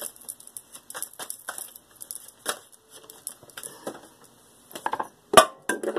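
Tarot cards being handled and shuffled: a run of light card snaps and rustles, with one loud knock about five seconds in.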